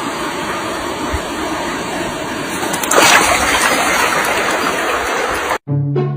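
Steady rushing, splashing noise like running water, with a louder surge about three seconds in; it cuts off abruptly near the end and music takes over.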